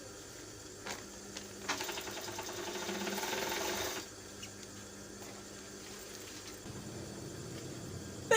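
A person blowing their nose hard for about two seconds, a fast fluttering rattle that builds slightly and then stops. A sudden loud burst comes right at the end.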